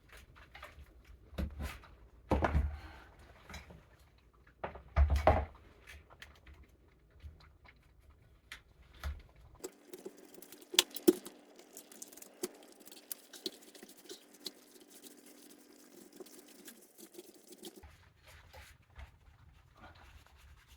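Handling noise of a chainsaw being cleaned of packed sawdust: scattered small clicks, scrapes and ticks, with a few louder knocks in the first few seconds. Through the middle part a faint steady hum runs under the ticking.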